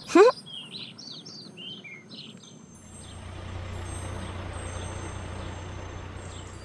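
Cartoon sound effects: a short rising tone, then birds chirping for about two seconds, then from about three seconds in a truck engine running steadily.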